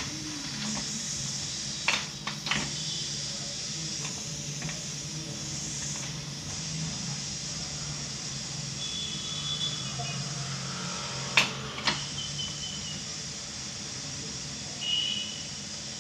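Steady hiss with a low hum under it, broken by two pairs of sharp clicks or knocks: one pair about two seconds in, another near the middle.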